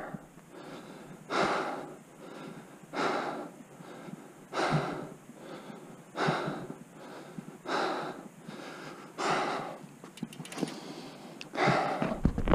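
A person breathing hard and gasping, a heavy breath about every second and a half: a mountain biker winded after a crash.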